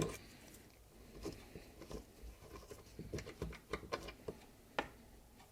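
Faint, irregular small clicks and taps of metal pedal parts being worked by hand as a bicycle pedal's bearing cone is undone from its axle, with one slightly louder tap near the end.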